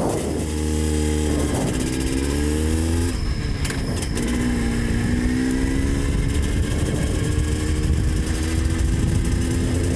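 Vehicle engine heard on board, pulling away and accelerating: its pitch climbs, drops about three seconds in as at a gear change, then rises slowly again.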